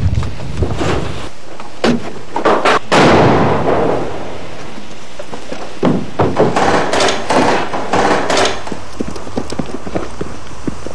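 Staged combat sounds of an assault on a building. A few sharp bangs are followed about three seconds in by a loud blast that dies away over about a second. A quick run of sharp bangs comes between about six and eight and a half seconds.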